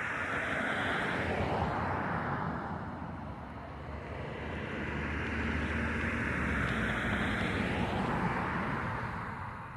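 Vehicles passing on a nearby road: two swells of tyre and engine noise, each rising and falling over a few seconds, fading away near the end.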